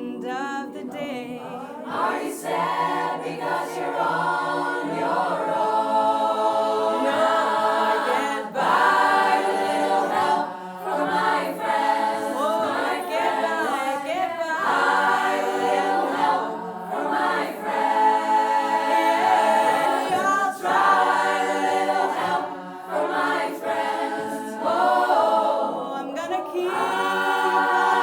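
An a cappella women's choir singing, several voice parts in close harmony, with held chords and pitches that slide between notes.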